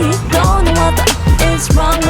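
Background pop/R&B music with a steady beat, heavy bass and a sung melody line.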